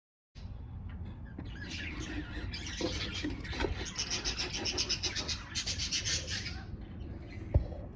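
A flock of budgerigars chattering with rapid chirps and squawks over a low rumble, with one sharp knock near the end.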